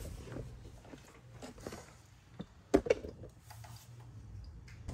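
Handling noises as a camera is moved and set down: soft rustling over a low steady hum, with two sharp knocks close together about three seconds in.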